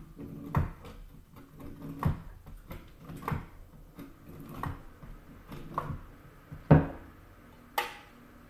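A hard Parmesan wedge rubbed down the fine side of a metal box grater in slow strokes, about one a second. Each stroke is a short rasp with a knock of the grater's base on the cutting board. A sharper knock comes about two-thirds of the way in, and another near the end.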